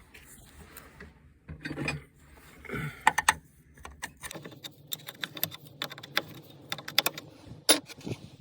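Hand wrench clicking and clinking on a bolt: sharp irregular metal clicks, a few a second, through the second half, after two short breathy bursts near the start.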